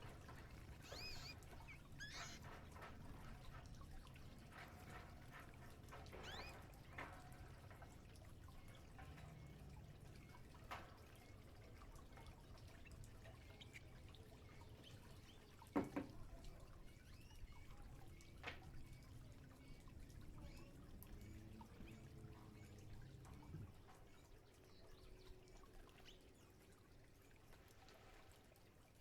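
Pet canaries bathing: faint trickling and splashing of water, with short high chirps here and there and a few sharp clicks, the loudest about halfway through.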